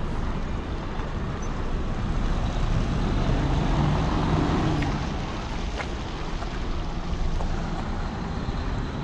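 A car being driven along a road: steady engine and tyre rumble with road hiss, growing a little louder for a couple of seconds around the middle.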